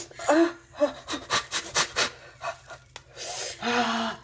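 Black peel-off face mask being pulled slowly off the skin around the mouth: a sticky, crackling tear as the adhesive pulls at fine facial hair. Pained breaths and a short low moan near the end.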